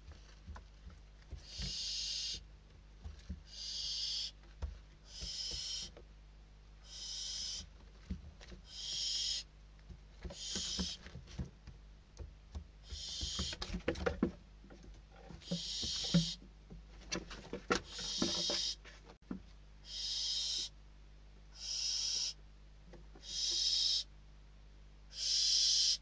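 Barn owl chicks giving their rasping, hissing begging calls, one harsh hiss under a second long about every second and a half: hungry nestlings after a food delivery. Midway through, a flurry of knocks and scuffling in the nest box as the chicks scramble.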